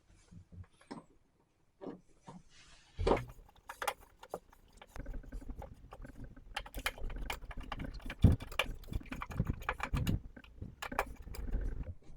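Phillips screwdriver backing out the mounting screws of a GFCI receptacle: small clicks and scrapes, a few at first and then a dense run over the last several seconds.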